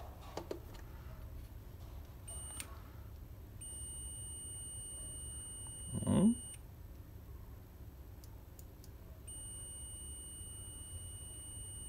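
Digital multimeter's continuity buzzer sounding a steady beep as the probes close through a new microswitch, a sign that the switch is conducting. There is a brief beep, then one of about three seconds, then another starting about nine seconds in. A brief low rising sound about six seconds in is the loudest moment.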